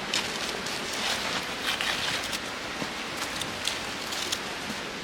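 Steady rush of a waterfall's running water, with many short, crisp crackles over it.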